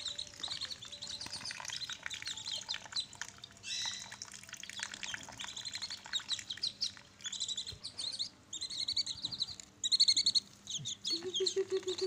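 A flock of whistling duck ducklings, nearly four weeks old, peeping continuously. Their high, thin chirps overlap, some coming in quick runs.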